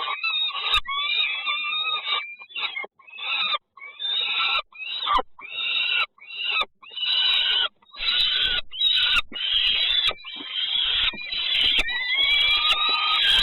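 Nestling birds giving loud begging calls, typical of chicks clamouring for food in the nest. The calls come in a rapid string of short bursts, then run together into a near-continuous chorus with rising whistled notes in the second half.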